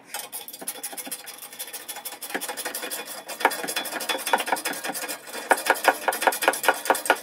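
Hand socket ratchet clicking rapidly as it works the bolt of a motorcycle exhaust clamp loose, the clicks growing louder and sharper toward the end.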